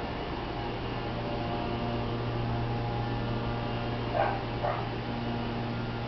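A steady electrical hum, broken by two short dog barks about half a second apart a little past four seconds in.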